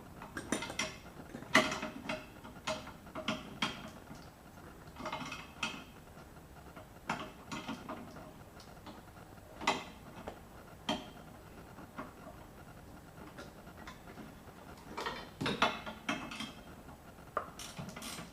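Ratchet wrench clicking in short bursts as a nut is worked loose, with metal tool clinks, on a golf cart's starter solenoid terminal. The bursts come in several separate clusters with pauses between them.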